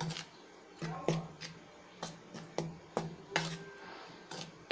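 A steel spoon stirring dry whole-wheat flour in a plastic bowl: irregular scrapes and knocks against the bowl, about two a second.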